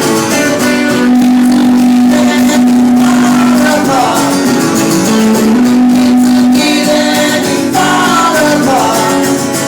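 Live band music with guitars: a short instrumental passage with long held notes that bend and slide between pitches, over a full, steady accompaniment.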